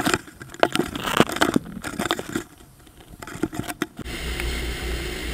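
Scratchy clicks and knocks of a handheld camera being handled and carried. About four seconds in, the sound changes abruptly to a steady low rumble of wind on the microphone with faint outdoor street noise.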